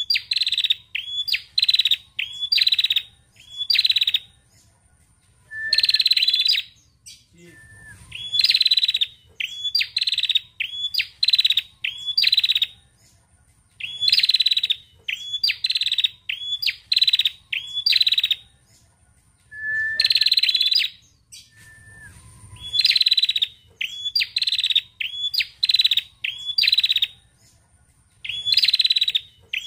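Female tailorbird ('prenjak') calling: short bursts of rapid, sharp high chattering notes, about two a second, in runs of several with brief pauses between the runs.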